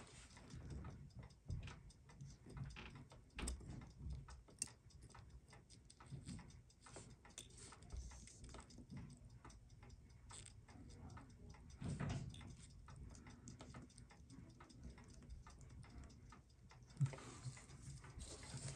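Faint, irregular small clicks and taps of steel tweezers against the parts of a Seiko 6217 watch movement held in a movement holder, with a duller knock about twelve seconds in and another near the end.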